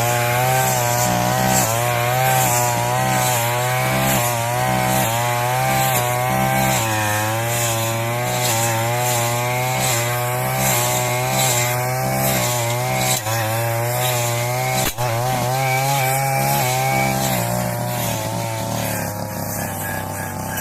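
Petrol brush cutter with a circular saw blade, running at high speed while cutting grass. Its engine pitch wavers up and down about once a second as the blade takes the load.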